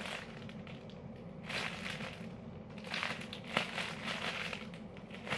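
Clear plastic packaging crinkling softly as it is handled, in several short rustles with a small click about three and a half seconds in.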